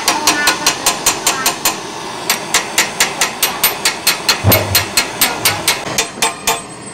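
Rapid, sharp metallic tapping at about five strikes a second, pausing briefly about two seconds in and again near the end, over the steady hiss of a butane canister torch. A dull thump comes about four and a half seconds in.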